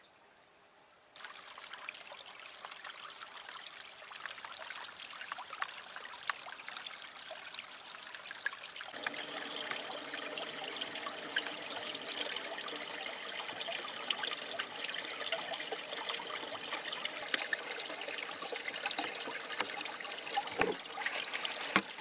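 Water trickling, starting suddenly about a second in and growing fuller about nine seconds in.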